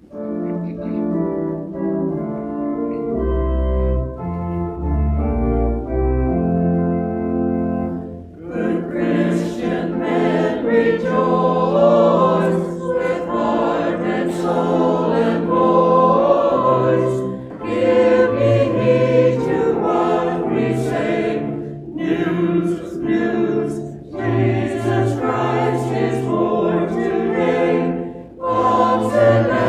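Organ introduction of held chords with low pedal notes, then about eight seconds in a mixed church choir comes in singing with the organ accompanying.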